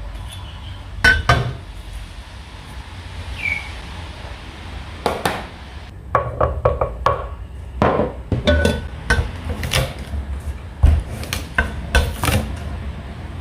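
Kitchen utensils and dishware knocking and clinking in an irregular clatter, a few knocks early on and denser ones from about five seconds in, some ringing briefly.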